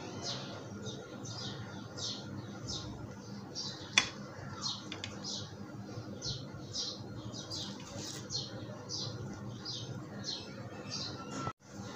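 A small bird chirping over and over in short high notes, about two a second, over a faint steady background hum; a single sharp click about four seconds in.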